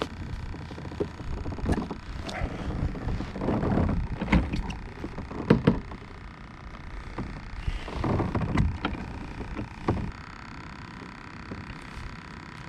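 Hollow knocks, clicks and rubbing of fishing gear against a plastic kayak's hull and deck as a spinning rod is picked up and handled, with two short rushing swells about four and eight seconds in.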